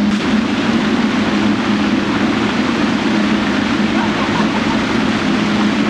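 Steady loud rushing noise with a constant low hum underneath, with no clear events in it.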